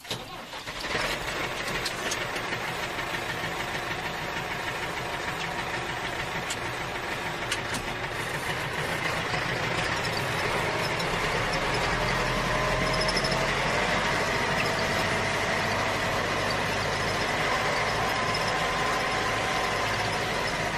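Steady vehicle engine running sound, with a few faint tones that waver slightly in pitch partway through.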